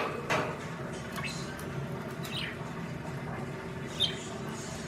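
Budgie giving a few short, soft chirps, several sliding down in pitch, spaced about a second apart. A sharp clack comes right at the start.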